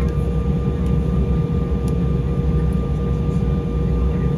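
Inside the cabin of an Embraer E175 taxiing after landing: the GE CF34 turbofans running at idle make a steady low rumble, with a steady hum and a fainter higher tone through it.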